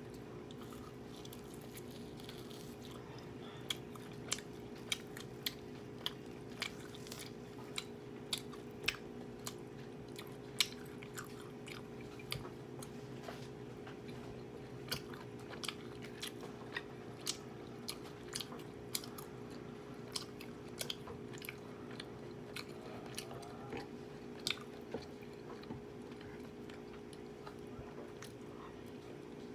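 A person chewing food close to the microphone, with irregular crunches and wet mouth clicks about one or two a second, over a faint steady hum.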